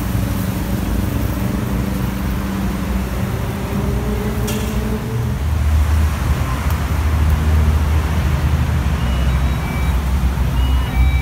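Street traffic noise: a steady engine hum, then a heavier low vehicle rumble from about five seconds in, with a few short electronic beeps near the end.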